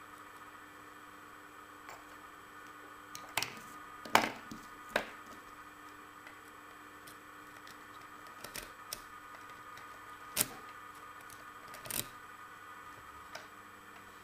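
A handful of sharp, separate clicks and knocks, about six spaced over several seconds, from handling an old 5-pin Yale rim cylinder and its picking tools just after the lock has been picked. A faint steady hum runs underneath.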